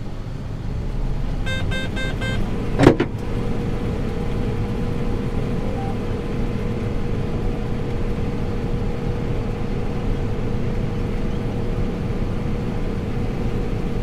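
Combine harvesting soybeans, heard from inside the cab: a steady machine drone with a low rumble and a constant hum. About a second and a half in, a quick run of four short electronic beeps, followed by a single sharp knock, the loudest sound.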